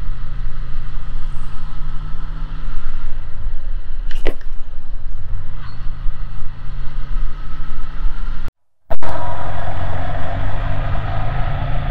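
Yamaha MT-15 motorcycle on the move: steady engine and road noise with wind rumble on the microphone. The sound cuts out for about half a second near the end, then carries on.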